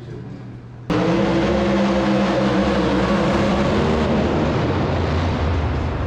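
Pulling truck's engine running hard as it drags a weight-transfer sled at a truck pull, with crowd noise underneath; it starts abruptly about a second in and settles into a deeper, lower drone about halfway through.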